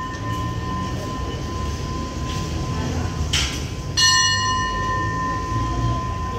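A platform bell struck once about four seconds in, ringing out with a clear metallic tone while the ring of an earlier strike fades at the start. Under it runs the steady low rumble of the waiting train, with a short hiss just before the strike.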